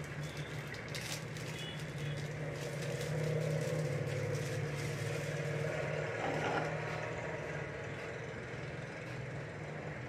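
A steady low mechanical rumble, like an engine, swelling louder for a few seconds in the middle and then easing off, with light crinkling of a plastic wrapper being peeled.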